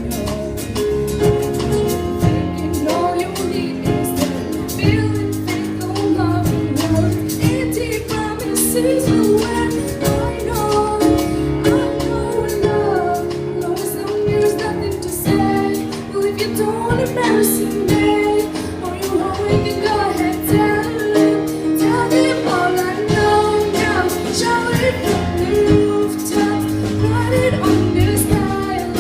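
A song sung by a female voice over instrumental accompaniment with a steady beat.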